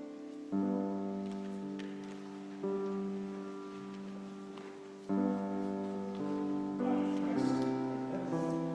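Slow instrumental keyboard music: sustained chords, each struck and then fading gently, changing every two to three seconds, with busier lower notes near the end.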